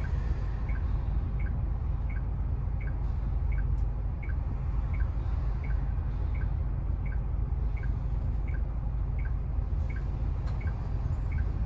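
Cabin of a highway bus: a steady low engine and road rumble with the turn-signal indicator ticking evenly, about three ticks every two seconds.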